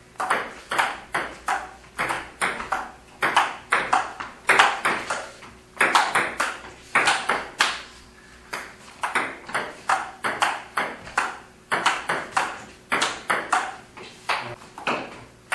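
Table tennis rally: the plastic ball clicking off the rubber paddles and the table in quick alternation, about two to three hits a second, with a short lull about halfway. Each click rings briefly in a hard-walled room.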